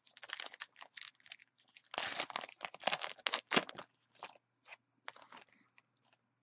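A Topps Allen & Ginter trading-card pack being torn open by hand: crinkling and tearing of the crimped wrapper, loudest from about two seconds in, then a few lighter crinkles near the end.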